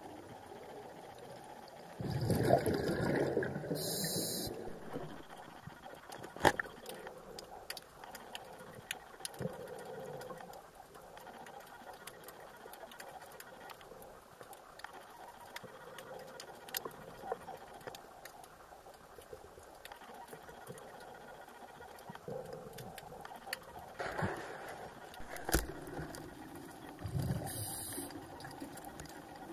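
Underwater sound heard through a diving camera's housing: a scuba diver's exhaled regulator bubbles rushing loudly about two seconds in and again twice near the end, over a faint steady hiss with scattered sharp clicks.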